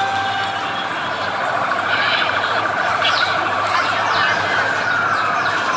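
Emergency vehicle siren warbling rapidly, its pitch gliding down near the end.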